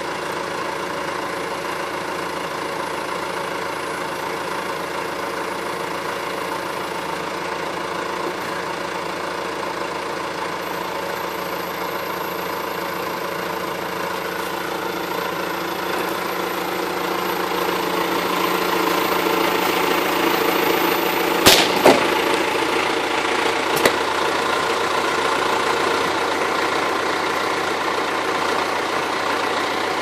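Backhoe's turbo diesel engine running steadily, getting louder and working harder over several seconds past the middle. Two sharp knocks come close together at the loudest point, and a lighter one follows about two seconds later.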